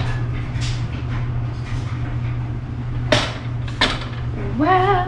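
Kitchen clatter: two sharp knocks a little under a second apart, like a pan or cupboard door, over a steady low hum, then a short rising, wavering call near the end.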